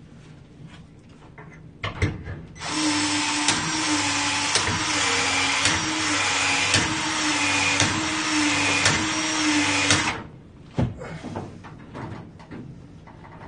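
Cordless PEX expansion tool running for about seven seconds, a steady motor whine that breaks with a click about once a second as it cycles, expanding the end of Wirsbo PEX pipe for a fitting. Light handling knocks come before and after.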